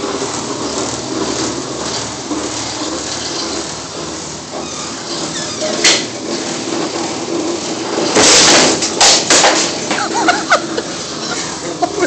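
Boni hockey-puck shooting machine running with a steady whir while pucks are fed in and fired. A sharp crack comes about six seconds in, then a loud clattering burst about two seconds later, followed by a few quick knocks.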